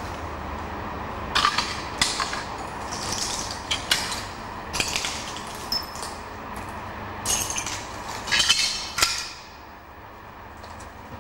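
Footsteps crunching over shattered glass and debris: a run of irregular crunches and clinks that stops about nine seconds in.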